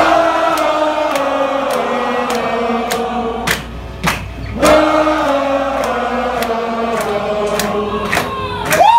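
Live band with many voices singing long held notes together, over drum hits about twice a second. Just before the end, one note swoops up and back down.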